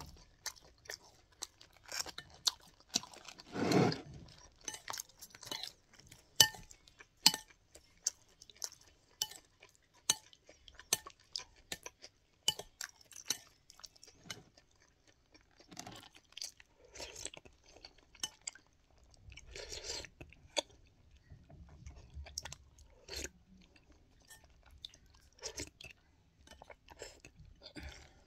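Close-miked chewing of a kebab wrap: many short, sharp mouth clicks at an irregular pace, with one longer, louder rush about four seconds in. A metal spoon now and then knocks against the ceramic bowl of es campur.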